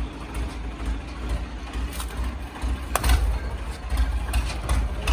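Tractor engine idling with a low, uneven rumble, with a couple of sharp knocks about two and three seconds in.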